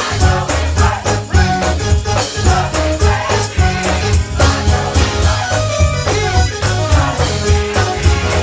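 Gospel music from a church choir and band: a heavy, pulsing bass line, drums and a steady rattling hand percussion under sung melody.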